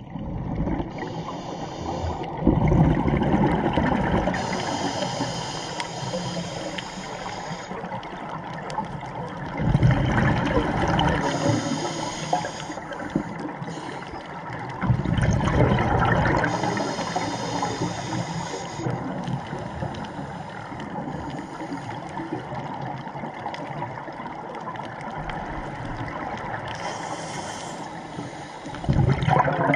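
Scuba diver breathing through a regulator underwater: a hiss on each inhalation, then loud bubbling gurgles as the exhaled air escapes, several times in a slow cycle.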